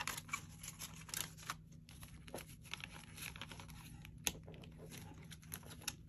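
Paper banknotes being handled and shuffled: faint, irregular rustling and crinkling with light clicks.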